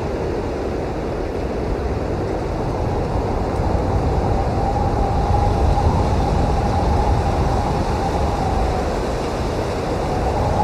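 Strong blizzard wind blowing steadily with a low rumbling rush. A faint whistling tone rises about four seconds in and fades away near the nine-second mark.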